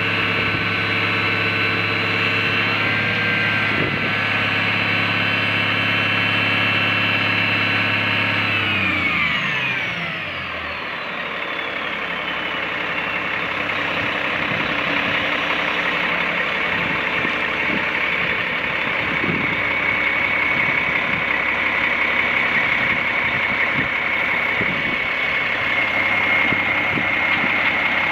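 Caterpillar diesel engine of a 1997 Ford 9500 boom truck running steadily at raised speed, then dropping in pitch about nine seconds in and settling to a lower, rougher run. A steady high whine continues through the second half.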